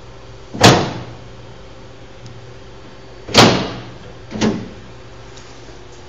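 Three sharp knocks as parts are handled on a home-built car's metal chassis: one about half a second in, a second as loud about three seconds later, and a weaker third a second after that.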